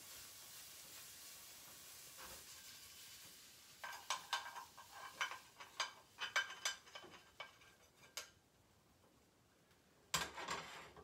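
A metal utensil clinking and scraping against a frying pan in quick, irregular strokes, starting about four seconds in and again near the end, after a faint steady hiss at the start.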